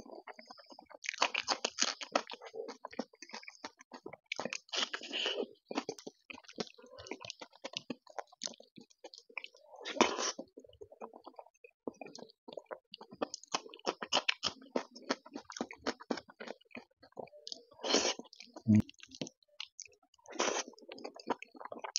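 Close-miked wet chewing and lip-smacking of a person eating rice and curry by hand, with some crunchy bites, coming in bouts of a second or two. There is a short low thud about three-quarters of the way through.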